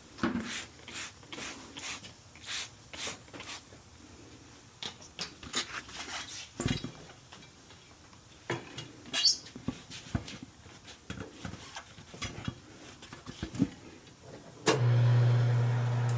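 Scattered metallic clinks and knocks of tools and parts being handled. About 15 s in, a steady low motor hum starts suddenly and becomes the loudest sound.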